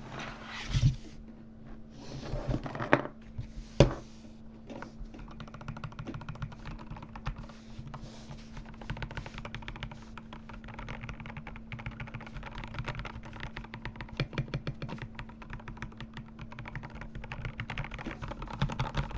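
A few separate knocks in the first four seconds, then rapid, continuous clicking of typing on a keyboard, over a steady low hum.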